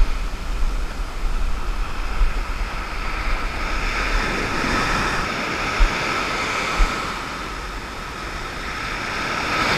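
Shore surf breaking and washing over the sand, a steady hiss of foam that swells and eases, with wind rumbling on the microphone and two short low bumps about a second apart a little past the middle.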